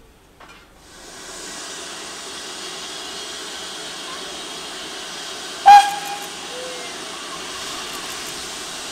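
BR Standard 9F steam locomotive hissing steadily with escaping steam from about a second in, with one short, very loud toot of its whistle about halfway through.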